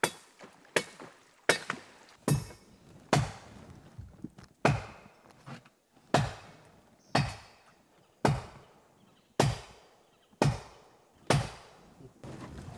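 A blade chopping into the wood of a fallen tree: about a dozen sharp blows, roughly one a second, each ringing briefly. The blows stop shortly before the end.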